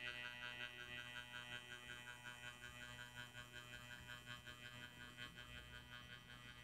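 Rivarossi ETR 213 model electric train running slowly along its track: a steady whine of several high tones from its electric motor and drive, pulsing about five times a second and slowly fading.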